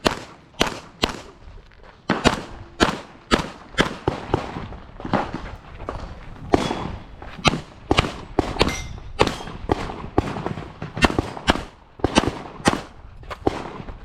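Handgun firing a rapid string of shots during an IPSC stage run, mostly in quick pairs with short pauses between groups. There are about two dozen shots over the stretch.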